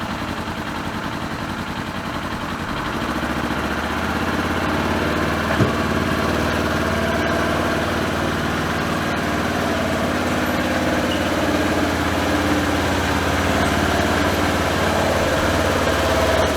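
Polaris Ranger 900 side-by-side engine running steadily, its low hum getting louder about three seconds in, with a single sharp knock partway through.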